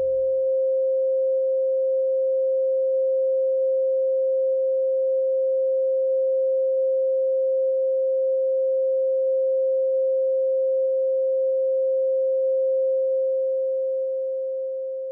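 A single steady pure electronic tone, like a held sine tone, sustained without change and fading out near the end. A deeper hum beneath it dies away about half a second in.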